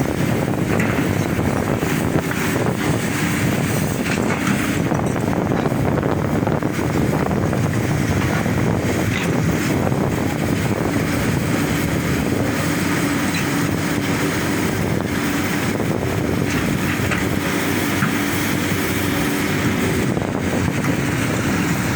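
Heavy earthmoving machinery's diesel engine running steadily under load, a dense, constant mechanical noise with a low hum.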